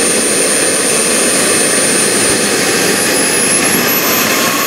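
Kingtech K-80E model jet turbine running with a steady loud rush and a high whine. About halfway through, the whine starts rising in pitch as the turbine spools up.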